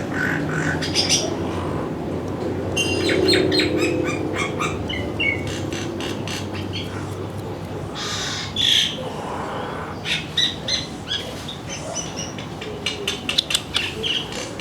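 Small birds chirping and twittering: many short, quick calls, denser in the second half.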